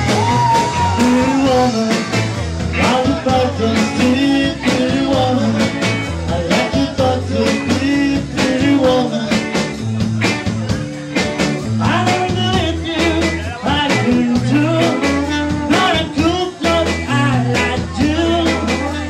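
Small live band playing: trumpet, electric guitars and bass guitar over a steady beat, with a melody line bending up and down above the bass.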